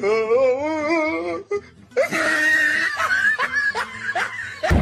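People laughing hard: a wavering, high-pitched laugh for about a second and a half, then more laughter and voices after a brief pause.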